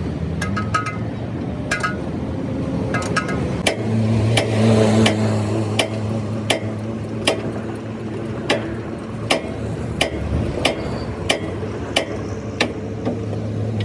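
Hammer blows on steel during a roadside truck axle and leaf-spring repair: quick clusters of metal clinks early on, then single ringing strikes about every three-quarters of a second. A vehicle engine runs underneath, louder from about four seconds in.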